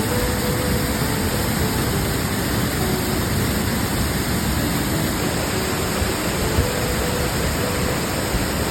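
Waterfall running steadily: a dense, even rush of falling water.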